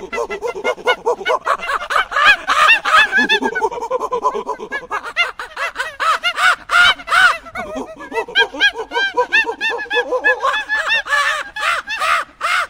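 A flock of waterfowl calling, many short, quick calls overlapping without a break.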